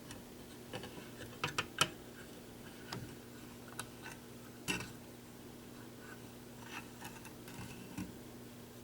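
Scattered light clicks and taps of something being handled, over a steady low electrical hum.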